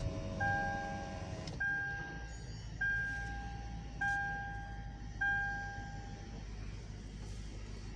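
Lexus LX 570's 5.7-litre V8 starting and settling into a steady idle after a transmission fluid change, with the dashboard warning chime pinging five times, about once a second.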